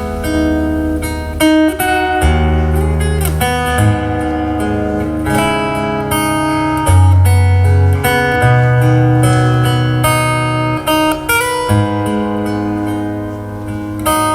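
Acoustic guitar music with a strong bass line, played through a DIY 2.1 Bluetooth speaker box with a 6.5-inch HK subwoofer.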